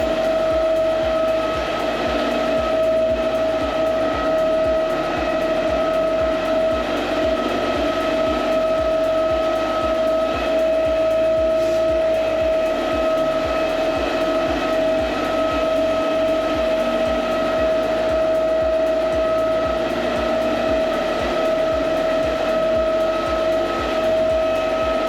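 Electric motor of a floor-care machine running steadily with a constant whine.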